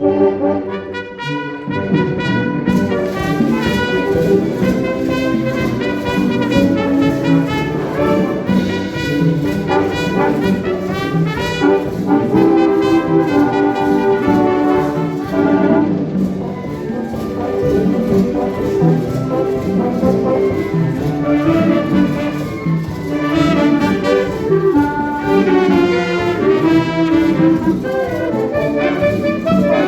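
Concert wind band playing, with trumpets and trombones prominent. A lighter passage opens, and the full band comes in about two and a half seconds in.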